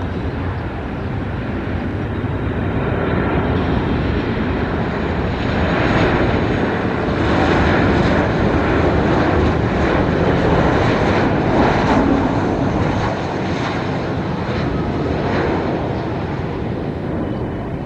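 Boeing 737-800 airliner on final approach, its CFM56 turbofan engines giving a steady broad rushing jet noise that swells to its loudest midway and eases again toward the end.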